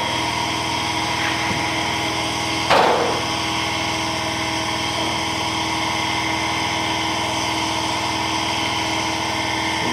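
Electric motor spinning a wooden disc of magnets inside a copper tube coil, running with a steady hum under the eddy-current braking load. A short sharp knock is heard about three seconds in.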